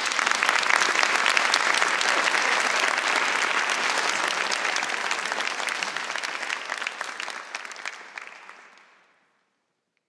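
Audience applauding with many hands clapping at once, dying away to silence near the end.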